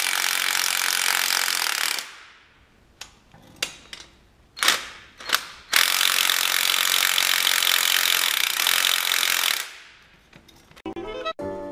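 Handheld impact gun running on the threaded rods of coil-spring compressors fitted to a car's front strut spring. It goes in two long rattling runs of about two and four seconds, with short blips in between. Music starts near the end.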